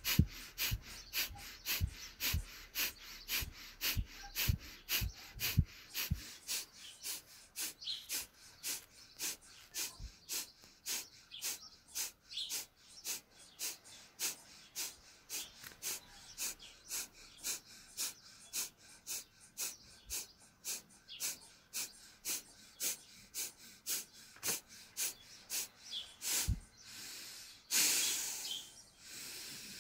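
A woman doing Kapalabhati breathing: short, forceful out-breaths at a steady pace of about two a second, each in-breath drawn passively between them, with one longer, fuller breath near the end.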